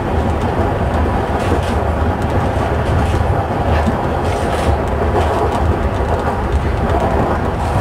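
DT3-E subway train running along the track, heard from inside the driver's cab: a steady low rumble with a few scattered clicks as the wheels cross rail joints and points.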